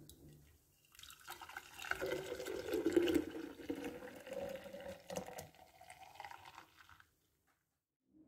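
Blended mandarin, lemon and yoghurt juice pouring in a thick stream into a glass pitcher, a steady splashing fill whose pitch edges upward as the pitcher fills. The pour stops about seven seconds in.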